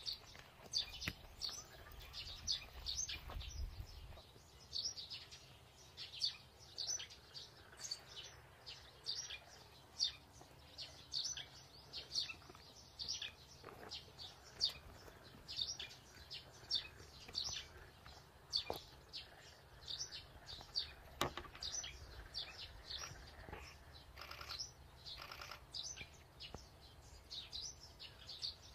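Small birds chirping: short, high calls repeated over and over, with a few faint knocks among them.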